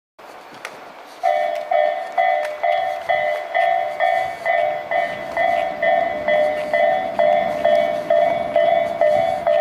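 A Japanese railway level-crossing alarm starts up about a second in, sounding pitched electronic bell strokes about twice a second. Two kinds of crossing alarm are mixed here, an Isesaki-type tone and a 'pon-pon' tone, and they ring badly out of step with each other.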